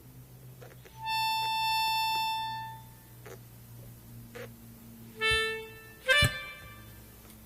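Halting single notes blown on a reed wind instrument. One loud note is held for about a second and a half, then a short lower note comes about five seconds in and a sharp brief one just after, with faint clicks between them.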